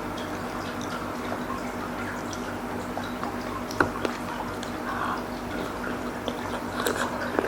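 Close-up eating sounds of soupy seblak: wet chewing and mouth sounds with a few sharp clicks, the sharpest about four seconds in and near the end, over a steady low hum.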